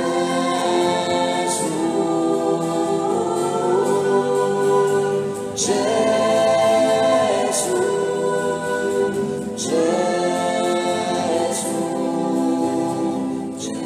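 A choir singing a slow sacred song in long held notes, with new phrases starting about five and a half and nine and a half seconds in.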